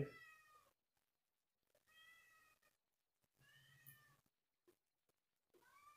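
Near silence: room tone, broken by three faint, short high-pitched cries.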